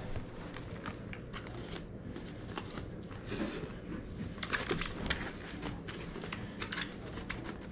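Handling noise: rustling, crinkling and light clicks as items and a carried bag are moved around, over a steady low hum.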